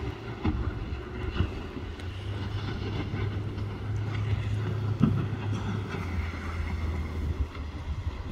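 A vehicle engine running under load, a low steady drone whose pitch shifts about two seconds in and again about six seconds in, with occasional knocks and rattles.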